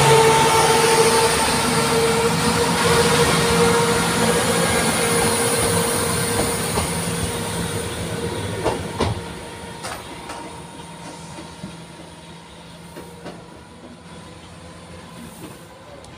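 Northern Class 170 Turbostar diesel multiple unit passing close by and pulling away, running with a steady whine that fades as it recedes. A few sharp clicks from the wheels over the track come about nine to ten seconds in, as the rear of the train goes by.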